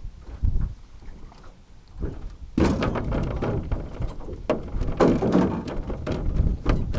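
Wind buffeting the microphone with a rumble and scattered knocks, turning into a loud gusting noise a little over two and a half seconds in.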